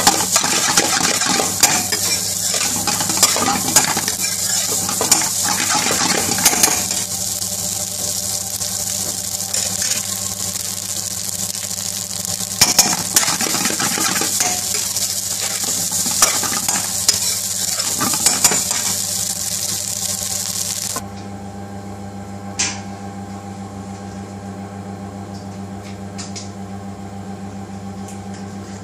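Chicken tikka biryani sizzling in a hot pan while a metal spatula stirs and tosses it, with frequent scraping clicks of the spatula on the pan. The frying stops suddenly about three-quarters through, leaving a steady low hum and one click.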